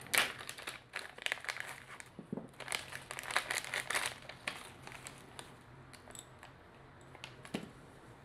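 A small clear plastic bag of screws crinkling as it is opened and handled, in dense rustling bursts that die down after about four seconds, followed by a soft click near the end.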